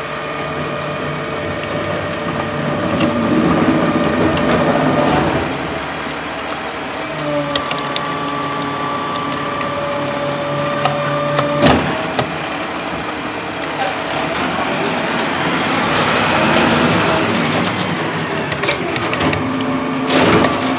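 Truck engine running steadily, its pitch stepping up and down a few times, over small clicks and knocks of hard plastic toy parts being handled, with one sharp knock a little before the middle and a run of clicks near the end.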